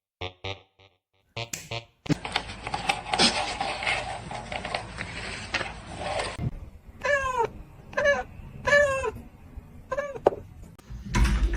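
Domestic cat meowing: about five short meows, each falling in pitch, in the second half, after several seconds of noise with clicks.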